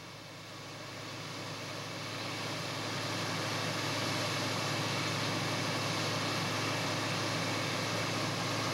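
Two combine harvesters running while they unload grain through their augers into a truck: a steady engine drone with a low hum, fading in over the first few seconds.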